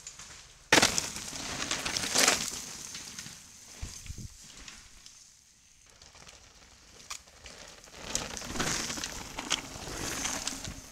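Downhill mountain bikes going past on a dirt trail, tyres crunching and skidding over dry leaves and loose ground, with clicks and rattles from the bikes. One goes by suddenly about a second in and another passes near the end.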